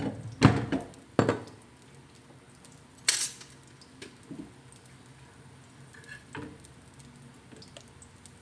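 Kitchen clatter of pots, dishes or utensils: a few sharp knocks and clinks, the loudest in the first second and another about three seconds in, followed by softer scattered knocks.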